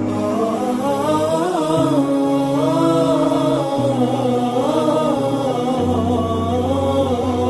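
Wordless chanted vocal music: a slow, bending melody sung over held low drone notes that shift pitch every couple of seconds.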